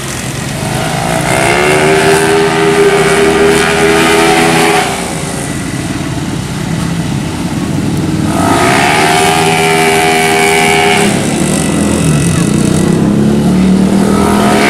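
Race motorcycle engines revving hard as the bikes accelerate out of corners. The engine pitch rises from about a second in and holds until it drops near five seconds, then climbs again around eight seconds. It falls back lower after about eleven seconds and rises once more near the end.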